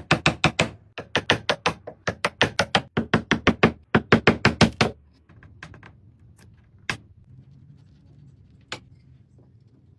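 Quick, even strokes of a tool working wood, about six a second for some five seconds, then a few scattered knocks and clicks.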